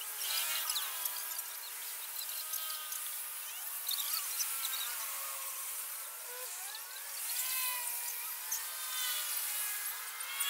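Outdoor chorus of animal calls: many overlapping whistling calls that rise and fall, over a steady high insect-like hiss.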